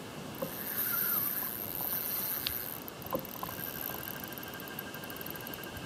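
Spinning reel's drag running with a high, thin whine as a hooked fish pulls line. Near the middle it breaks into rapid fine ticking, with a few light knocks from the rod and kayak fittings.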